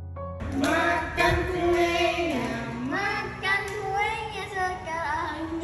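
A young child's voice singing a drawn-out, wavering tune with no clear words, starting about half a second in as a few soft piano notes die away.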